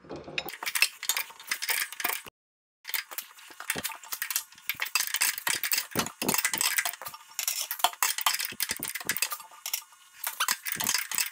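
Rapid, irregular metallic clicking and clinking of a wrench turning the broken-loose nut on a tractor's hydraulic pressure line fitting, briefly cut off just over two seconds in.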